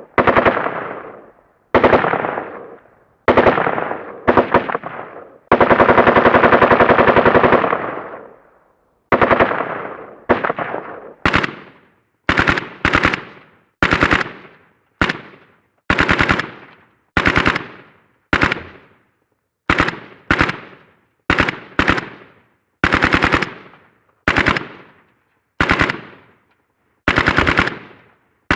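Automatic gunfire sound effect: a series of rapid-fire bursts, each fading out quickly, with one longer burst of about two and a half seconds about a fifth of the way in and many short bursts after it.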